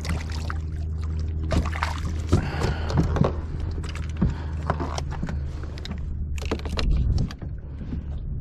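Water sloshing against a plastic kayak hull under a steady low rumble, with repeated knocks, clicks and rustles as a freshly landed fish and fishing gear are handled on the deck.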